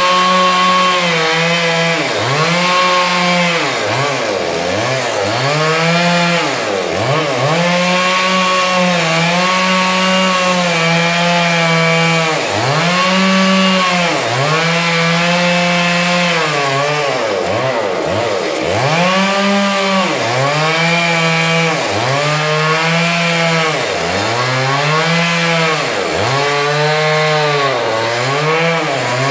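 Two-stroke chainsaw at full throttle cutting into a log, its engine pitch dropping and climbing back every second or two as the chain bites into the wood.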